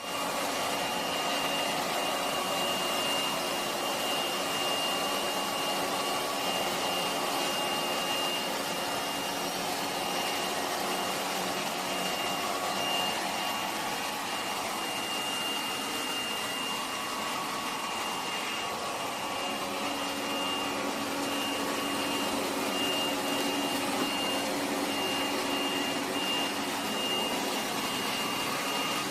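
Lefant M1 robot vacuum running while it cleans: a steady suction-fan and brush whir with a thin, high whine over it.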